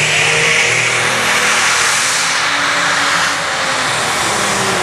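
Allis-Chalmers light pro stock pulling tractor's diesel engine running flat out under load as it drags the sled, loud and steady. A high whine climbs in pitch during the first second.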